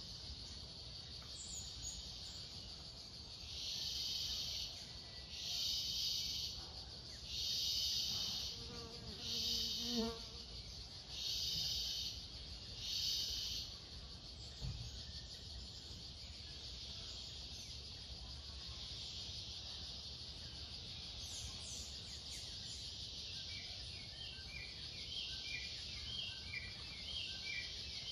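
Steady high-pitched drone of forest insects, with six louder pulsing buzzes, each about a second long and coming roughly every one and a half seconds, in the first half. Near the end a run of short chirps repeats a little faster than once a second.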